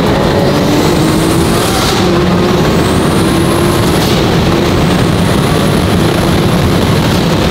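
Twin-turbocharged Lamborghini Aventador SVJ V12 accelerating hard, heard from inside the cabin. The engine note and a high turbo whistle climb in pitch again and again, each climb breaking off and starting lower, about two and four seconds in.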